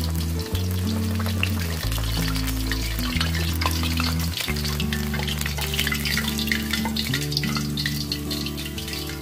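Pork hock deep-frying in a wok of hot oil, crackling and sizzling, over background music with steady low notes.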